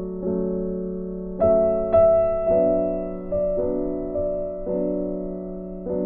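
Background music: slow, soft piano chords, each struck and left to fade before the next.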